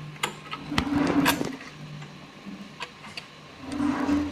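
Sharp small clicks and clinks, with a couple of short scraping rubs, as a part is fitted back onto a sewing machine.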